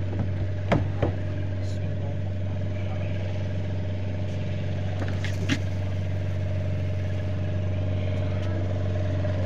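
An engine idling with a steady low hum, with a few sharp knocks near the start and around the middle.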